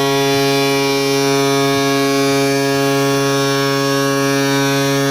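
Ice hockey arena goal horn of the Colorado Eagles sounding one long, steady blast, signalling a goal scored.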